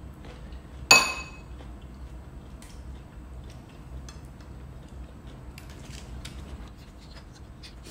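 A spoon clinks once against a ceramic bowl about a second in, with a short ringing tail, followed by faint scattered clicks and rustles of hands peeling prawns and eating.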